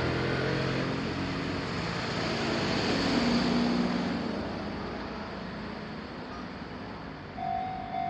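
Road vehicles passing at a railway level crossing, with engine and tyre noise swelling and then fading away. Near the end a Japanese level-crossing warning bell starts ringing in a steady, repeating tone.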